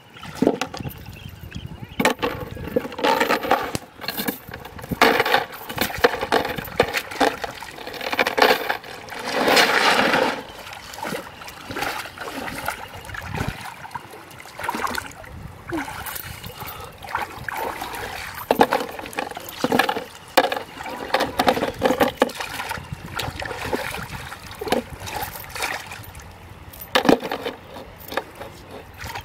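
Shallow river water splashing and sloshing in irregular bursts as a person wades and works a line by hand in it. The longest, loudest splash, about a second long, comes around ten seconds in.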